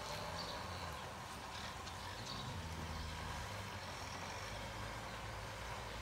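Tractor engine running, a steady low drone.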